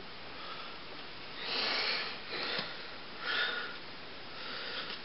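A few short breaths or sniffs, about a second apart, close to the microphone.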